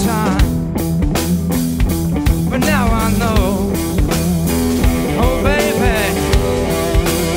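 Live rock band playing: a singer over electric guitar, bass and drums, with a steady drum beat.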